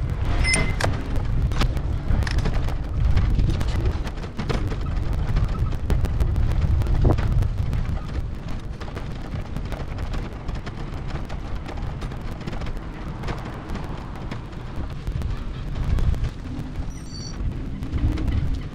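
Wind buffeting and road rumble picked up by a bicycle-mounted camera while riding, a steady low rumble with many small clicks and knocks. A few short high beeps sound at the very start, and a brief high chirp comes near the end.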